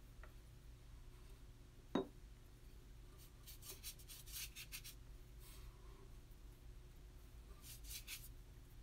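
Faint scratchy strokes on paper in two short runs, the second near the end, after a single sharp tap about two seconds in.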